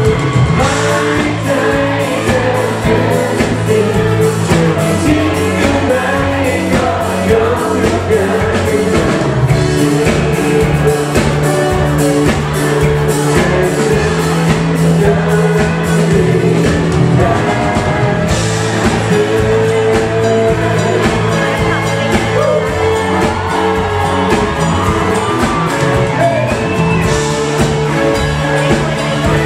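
Live band music with a singer, a steady drum beat and sustained bass notes.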